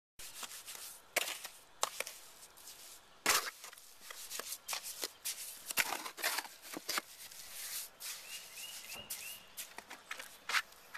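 Trowel scraping and slapping through wet Portland-cement mortar in a plastic mixing tub, in irregular strokes.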